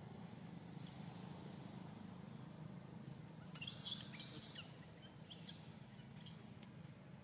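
Quiet outdoor background with a steady low hum, and a brief cluster of high-pitched animal chirps and squeaks about halfway through.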